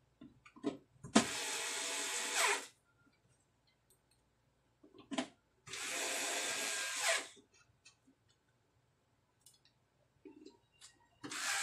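Cordless electric screwdriver driving screws into the steel top cover of a power amplifier: three short whirring runs, each about a second and a half long, with small clicks of screws and tool between them.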